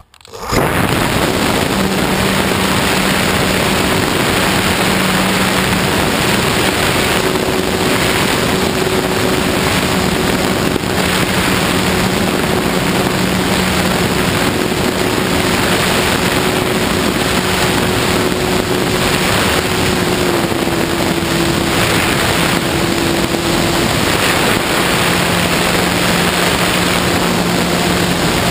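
Onboard sound of an FPV radio-controlled foam airplane in flight: loud wind rush over the microphone with the steady hum of its propeller, which starts abruptly about half a second in. The propeller's pitch shifts slightly with throttle, dropping a little about two-thirds of the way through.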